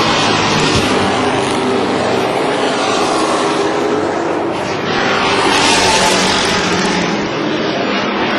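Racing pickup trucks' engines running hard at speed on a short oval, loud and steady. The sound swells as the trucks pass, once right at the start and again about five to six seconds in.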